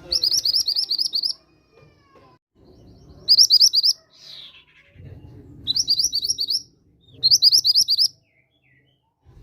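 Mountain mantenan bird calling: four quick rattling phrases of sharp rising chirps, about eight or nine notes a second, each phrase lasting under a second and a half with short gaps between.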